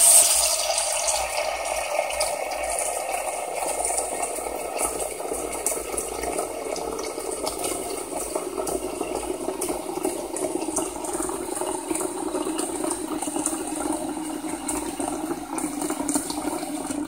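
Kitchen tap running into a stainless steel saucepan in the sink, filling it with cold water: a steady splashing pour whose tone slowly lowers as the pot fills.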